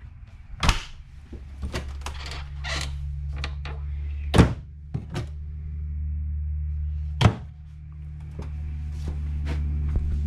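A string of knocks and thunks, three of them much louder than the rest, over a steady low hum.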